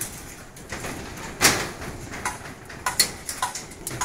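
Irregular sharp metallic clicks and knocks from hand work on steel rebar over corrugated steel decking, the loudest about a second and a half in and a quicker run of them over the second half.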